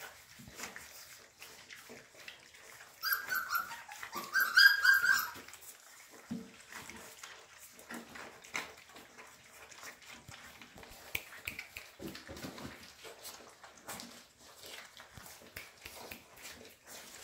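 Llewellin setter puppies eating their weaning meal from a stainless steel feeding pan. A few high-pitched puppy cries come about three seconds in and again a second or so later, then only scattered small clicks and soft sounds of eating at the pan.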